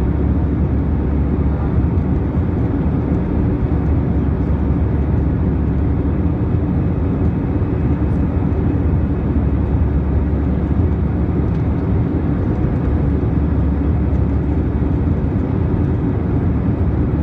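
Steady cabin noise of a jet airliner climbing out after takeoff, heard inside the cabin over the wing: an even, deep rumble of the engines at climb power and the air rushing past the fuselage.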